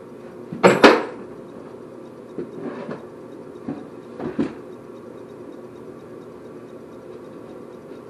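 Knocks and clunks on a wooden cabinet frame as someone works inside it: a loud double bang about a second in, then a few lighter knocks, over a steady low hum.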